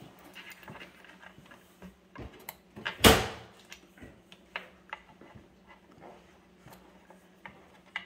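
Handling noise as a cup pull is fitted to a cabinet drawer front, with screws pushed through from inside the drawer: small clicks and taps, and one sharp knock about three seconds in.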